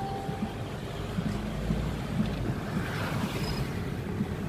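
Low, steady rumble of a car driving slowly in city traffic, heard from inside the cabin: engine and road noise with some wind on the microphone.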